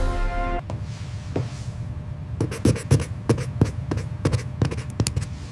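A string of irregular sharp knocks and clicks, about a dozen, over a low rumble.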